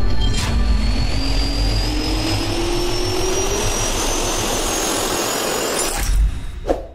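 Jet engine spooling up: a steady rush of noise with a whine that rises slowly in pitch, then cuts off suddenly just before the end.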